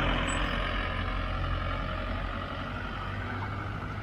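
Street traffic: a motor vehicle driving past, its engine rumble and tyre noise slowly fading.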